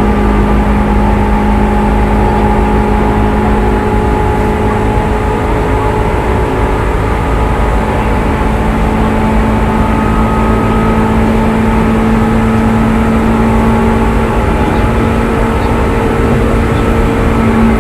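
Seibu 2000 series electric train running: traction motor and gear whine in several steady tones that creep slightly up in pitch, over a dense rumble of wheels on rail. This unrenovated set is singled out for its unusual running noise.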